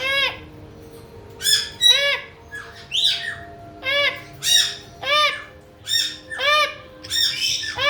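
A caique parrot screeching its contact call over and over in reply to its keeper: short, loud, arched squawks, often in pairs, about one or two a second.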